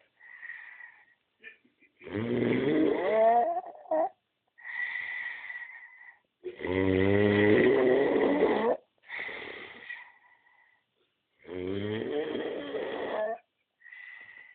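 Snoring: three loud, long snores about five seconds apart, with softer, faintly whistling breaths between them.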